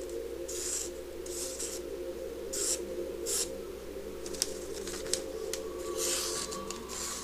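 Freshly sharpened knife edge slicing through thin paper in short swishing strokes, about six of them, with two sharp ticks in the middle, all over a steady background hum.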